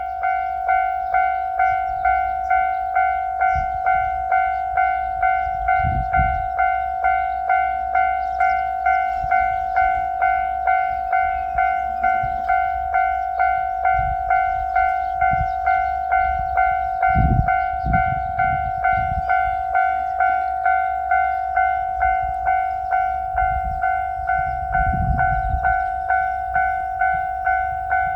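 Japanese railway level-crossing warning bell ringing steadily, the familiar 'kan-kan' of a crossing signalling an approaching train. It is an even run of bell-like strikes, about three every two seconds, each fading before the next.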